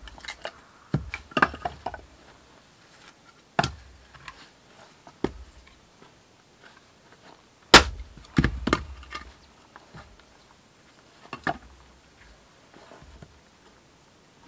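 Axe splitting firewood on a chopping block: sharp, separate chops a second or more apart, the loudest about eight seconds in, with lighter knocks of split wood falling and a fresh piece being set on the block.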